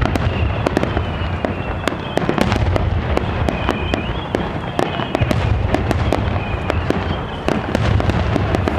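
Japanese star mine fireworks barrage: a rapid, continuous stream of sharp crackling bursts over repeated deep booms.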